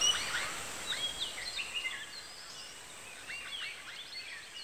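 Birds chirping and twittering: many quick, short calls from several birds, over a faint steady high hiss.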